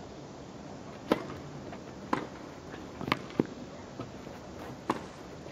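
A tennis ball struck back and forth by rackets in a rally: about six sharp pops, roughly one a second, over a steady low background.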